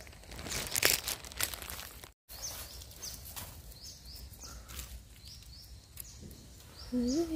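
Nylon net shrimp trap rustling and crackling as it is lifted and shaken over a bucket, with a few loud crackly strokes in the first second and a half. After a sudden cut, a bird repeats a short high chirp a couple of times a second.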